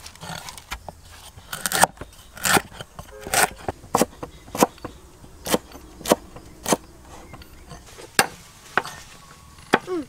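Chopping with a knife: about a dozen sharp strokes at an uneven pace, roughly one every half second to a second.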